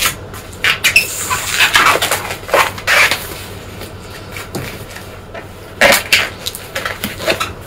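Latex modelling balloon squeaking and rubbing in the hands as it is handled and its nozzle is knotted, in short irregular squeaks.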